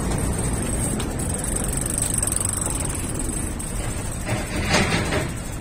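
Low steady rumble of wind and road traffic heard from a bicycle rolling across a pedestrian overpass, with a brief louder hiss near the end.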